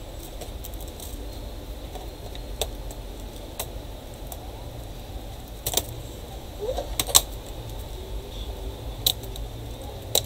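Irregular sharp plastic clicks and taps from a Dell Inspiron 15R laptop keyboard being pressed down and clipped into place in its palmrest. The loudest click comes about seven seconds in.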